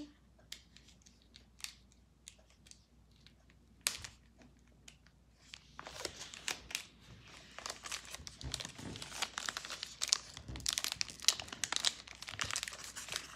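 Foil Pokémon booster pack wrapper crinkling and tearing as it is pulled open by hand: a few scattered crinkles at first, then dense, steady crinkling from about six seconds in.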